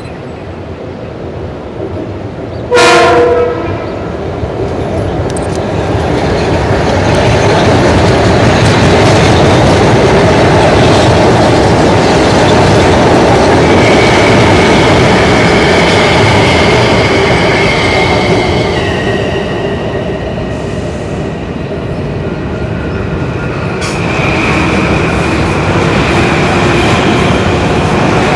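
A Metro-North commuter train sounds one short horn blast, then runs through the station with a loud, steady rolling rumble and wheel clatter. High whining tones come in about halfway through, shift down, and return near the end.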